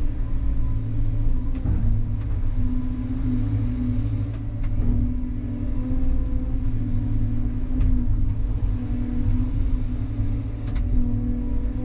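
CAT 320 hydraulic excavator running under work from inside the cab: a steady low engine drone, with a higher hum that rises and drops away every second or two as the hydraulics take load.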